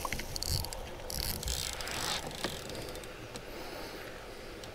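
Handling noise as a bass is brought aboard a kayak and gripped: a run of rustles, light knocks and small clicks over the first two seconds or so, then quieter.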